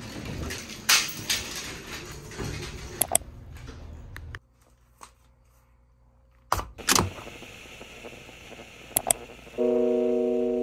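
A lift car running with a low steady rumble, with a few clunks and clicks. About four seconds in it cuts to a quiet room, where a few sharp knocks come as things are picked up and handled. Steady chime-like music notes start just before the end.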